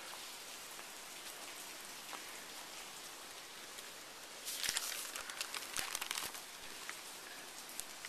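Hard rain falling, a faint even hiss, with a louder stretch of crackling patter lasting about two seconds around the middle.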